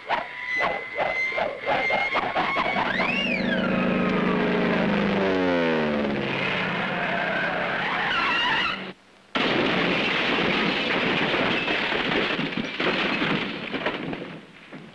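Cartoon sound effects: a quick whistle-like glide that rises and falls, then a falling glide in steps, then a long rushing noise that breaks off for a moment about nine seconds in and then resumes.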